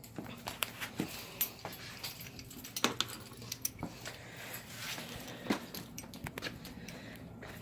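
Scattered small metallic clicks and knocks of hands handling hardware, a dozen or so irregular taps spread through the stretch, with no steady machine sound under them.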